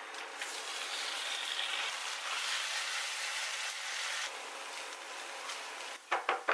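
Tocino (sweet cured pork) frying in a pan, a steady sizzle that is louder for the first four seconds and then eases off. A few sharp clicks near the end.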